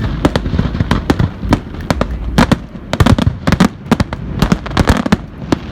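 Fireworks going off: a quick, irregular string of sharp bangs and cracks over a low rumble.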